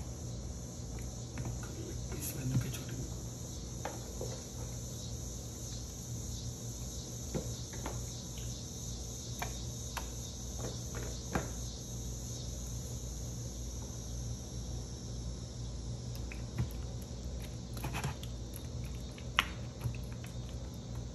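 Soft, scattered clicks and squelches of hands pressing marinated chicken pieces into an aluminium foil tray, over a steady low hum and a faint high whine.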